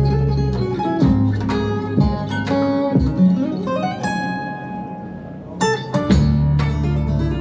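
Guitar-led music in a flamenco style, with quickly plucked and strummed notes over deep sustained bass notes; it softens about four seconds in, then the bass comes back in strongly.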